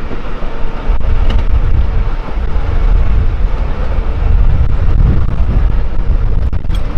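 Miniature ride-on train running along its narrow track, heard from on board as a steady low rumble, with a few sharp clicks about a second in and again near the end.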